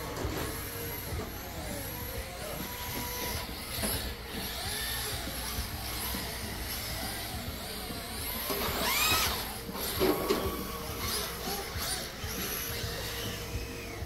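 Electric RC drift cars' motors whining high and thin, the pitch repeatedly rising and falling as the cars speed up and slow down around the track, with one louder rising whine about nine seconds in.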